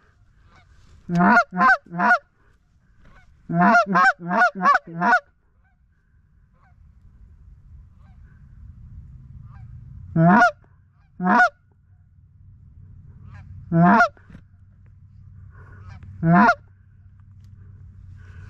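Goose honks, loud and close: a quick run of three, then a run of five, then four single honks a few seconds apart.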